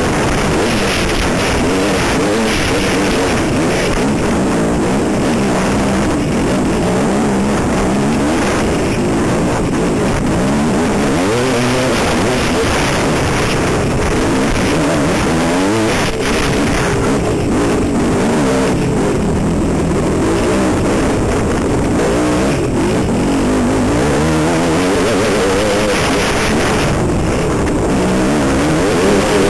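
Dirt bike engine running hard, its pitch rising and falling over and over as the throttle opens and closes, heard from a helmet-mounted camera over a constant rush of noise.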